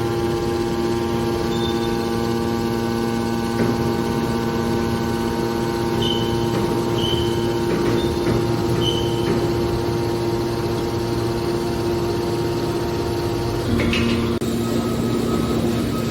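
Hydraulic metal baler running: a steady hum from its electric motor and hydraulic pump, with a few short high squeaks partway through and a change in the pitch of the hum near the end.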